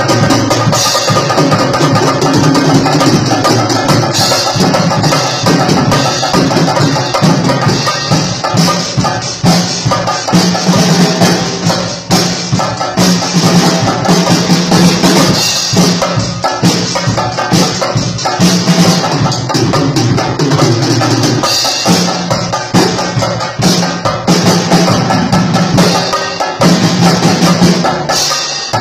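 Chenda, the Kerala cylindrical drum, beaten fast with sticks together with a drum kit: a dense, continuous rhythm of sharp rapid strokes with cymbals and drums.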